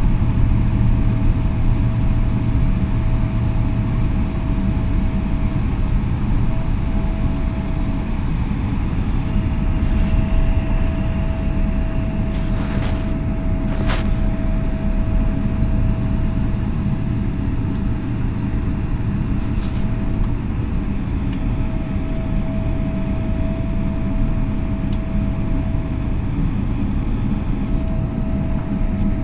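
Airliner cabin noise while taxiing after landing: a steady low rumble from the jet engines and airframe, with a faint steady whine above it. A few brief clicks around the middle.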